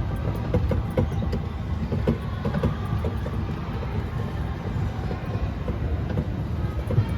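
Mall ride-on train rolling along: a steady low rumble with irregular clicks and rattles from its wheels and cars.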